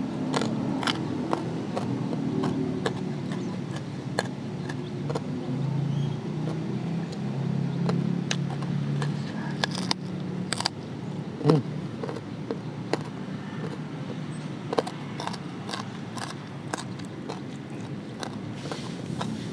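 A person eating: chewing with many short mouth clicks and smacks, over a low rumble that is strongest in the first half and fades after about ten seconds.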